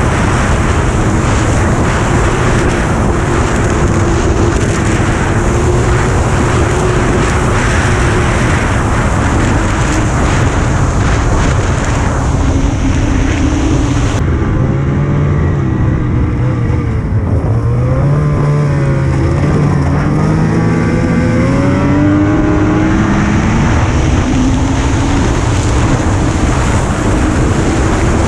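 Engine of an off-road vehicle running under way, with a constant rush of wind and travel noise. The engine note wavers and climbs in pitch with the throttle in the second half, and the hiss eases for several seconds around the middle.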